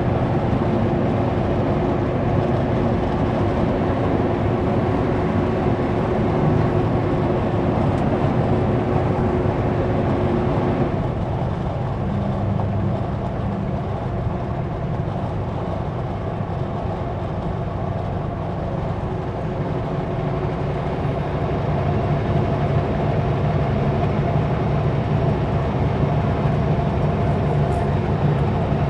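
Kenworth W900L semi truck's diesel engine pulling steadily at highway speed, with road noise. About a third of the way in, the engine note drops lower and gets a little quieter, then builds again.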